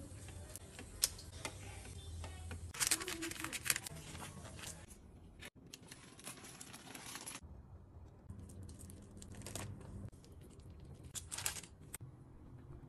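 Rustling and crinkling of plastic cling film as it is handled and pulled over a tray of sushi rice, in irregular bursts. Before this comes the scrape and rustle of rice being mixed in a pot.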